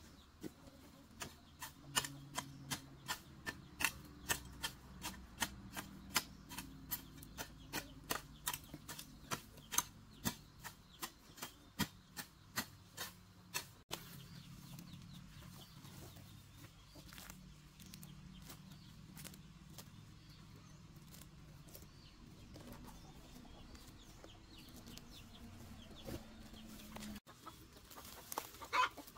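A hand hoe striking into grass and soil again and again, about two strokes a second, for the first half. After that it is quieter, with hens clucking and the rustle of weeds being pulled up by hand, and a sharp tearing sound near the end.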